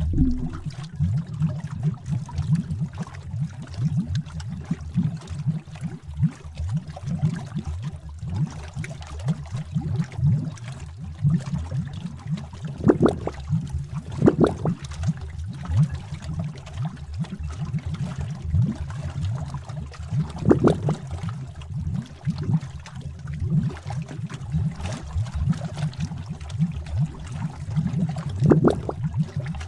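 Bubbling cauldron sound effect: a thick liquid bubbling continuously, with many small low bubbles popping and a few louder pops standing out now and then.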